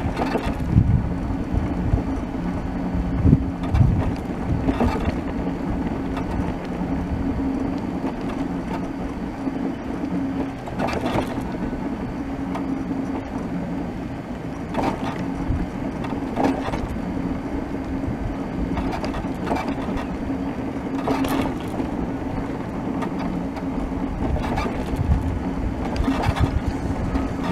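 Electric wheelchair's drive motors whining steadily as it rolls over asphalt, with a rumble from the wheels and occasional short knocks and rattles.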